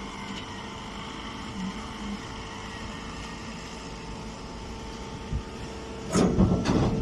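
Stationary straw baler running: a steady machine hum with several held tones. About six seconds in, a much louder burst of clattering noise with a couple of sharp knocks sets in.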